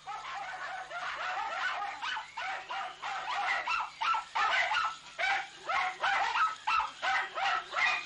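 A dog barking in a long, rapid run of barks, about two a second, louder from about three seconds in.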